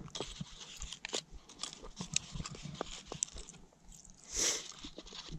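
Small clicks, ticks and rustles of fingers picking fishing spoon lures out of a hard-shell case, the metal lures tapping against the case. A brief louder rustle about four and a half seconds in.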